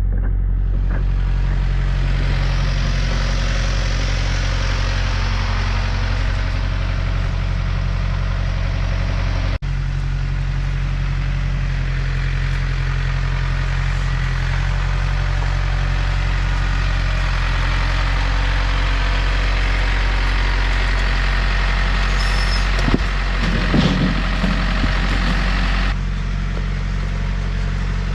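Small diesel engine running steadily, with a few knocks and clatter near the end.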